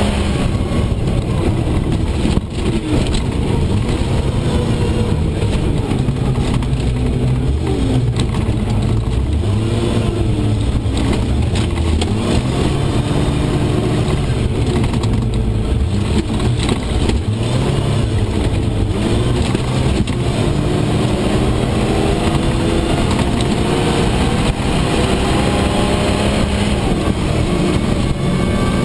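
Steyr-Puch Pinzgauer engine and drivetrain running hard over a rough gravel rally stage, heard from inside the cab; the engine note rises and falls as the truck speeds up and slows, with several climbs in pitch in the last third.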